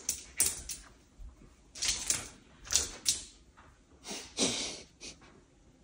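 Small dogs' claws clicking and scrabbling on a hardwood floor in short, irregular bursts as they move about.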